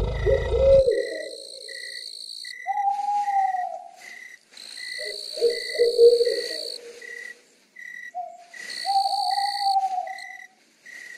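Night-time nature ambience: long hooting calls, like an owl's, over evenly spaced cricket-like chirps a little over twice a second, with a high insect drone that comes and goes. A low rumble cuts off about a second in.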